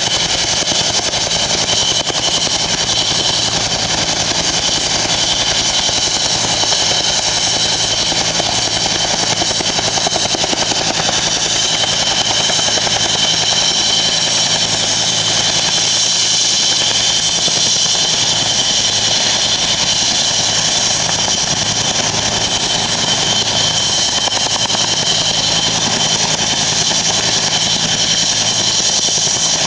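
Helicopter coming in to land, its turbine and rotor running steadily and loudly.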